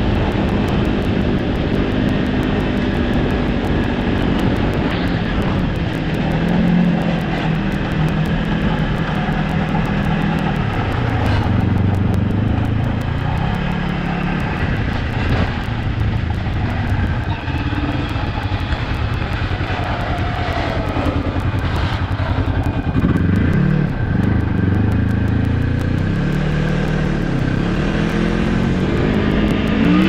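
Snowmobile engine running under way, its pitch rising and falling again and again as the machine speeds up and slows down.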